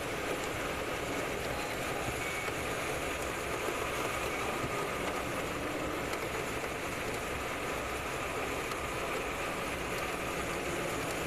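Steady rush of airflow over a glider's canopy and fuselage in flight, heard from inside the cockpit.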